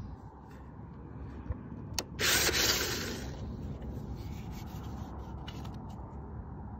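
A brief rubbing, scraping noise about two seconds in, lasting about a second and the loudest thing here, with a few faint clicks and a low steady rumble underneath.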